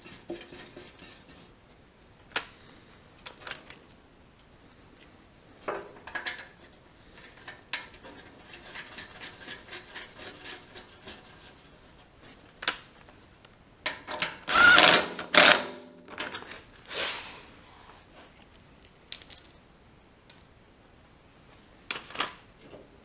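Clicks and clinks of bolts and small hardware being handled and fitted through a steel tractor foot pad, with a short louder burst from a power tool, likely the cordless drill/driver, about fifteen seconds in.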